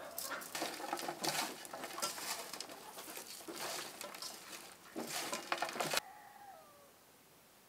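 Hands mixing and squeezing raw chicken pieces with onion and spices in an enamel bowl, making irregular wet squelching and rustling strokes that stop abruptly about six seconds in. After that comes faint outdoor quiet with one short, falling bird call.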